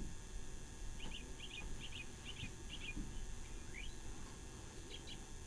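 A small bird chirping in the background: a run of about six quick paired chirps, then a single rising note, then a couple more chirps, over a steady low rumble with a couple of soft low thumps.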